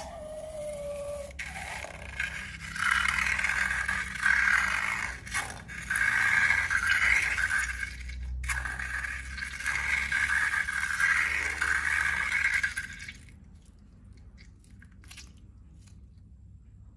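Scraping and rustling of slime and balloons being handled. It comes in several swells from about a second and a half in and dies away about four seconds before the end, with a short falling squeak at the very start.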